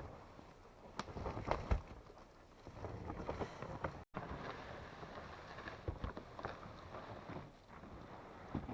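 Irregular light knocks, cracks and rustling from someone moving about and handling logs, with a sudden brief dropout about four seconds in.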